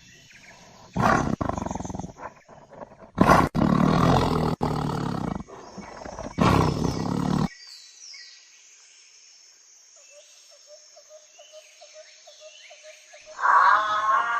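A large wild animal roaring in several deep, harsh calls over the first half, followed by a quieter stretch with faint high chirps. A louder wavering call begins near the end.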